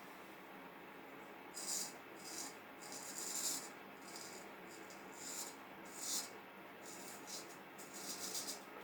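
Vintage Norton straight razor scraping through beard stubble: a series of short, crisp scraping strokes, some quick and some lasting about half a second to a second.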